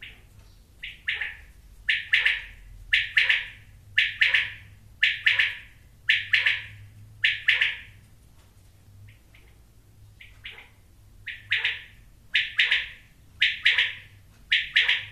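Caged common quail (batair) calling: sharp, loud notes in quick groups, about one group a second. The calling breaks off for a couple of seconds about halfway through, then starts again.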